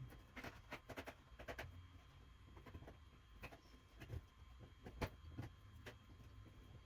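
Faint scattered clicks and scrapes of hands working electrical wires and plastic wire nuts, with a sharper tap about five seconds in.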